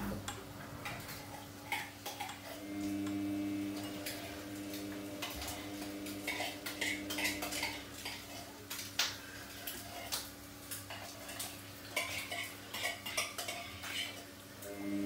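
Samsung front-loading washing machine tumbling a load of laundry. The motor hum runs for about five seconds while the drum turns, stops for a pause, and starts again near the end. Light clicks and clatter sound throughout.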